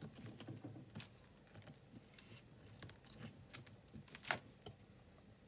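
Glue stick rubbed round the edges of a piece of card packaging, with faint scattered taps and paper handling; one sharper tap about four seconds in.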